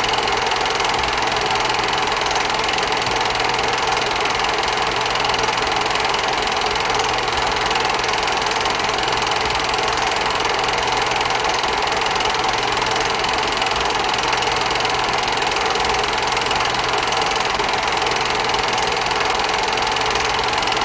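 Steady mechanical whirring and clatter of a running film projector, with an even electrical hum underneath.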